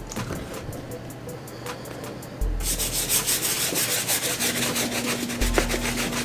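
Soft-bristle brush scrubbing a sneaker's upper and midsole in rapid back-and-forth strokes. The scrubbing gets louder and brisker about two and a half seconds in.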